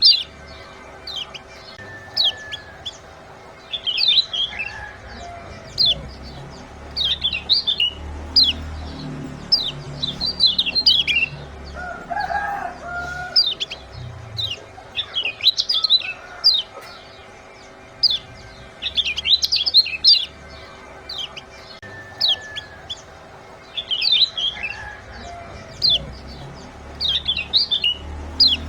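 Lemon-bellied white-eyes (kecial kuning) giving their 'ciak' calls: quick clusters of sharp, high, downslurred chirps every second or two over a faint steady hum. A lower, rougher call comes in briefly about twelve seconds in.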